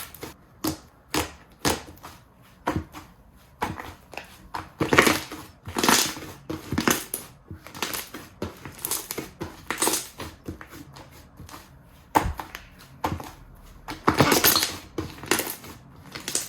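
Slime being squeezed and pressed by hand, making irregular squishing crackles. Some are short and sharp, others drawn out for about half a second.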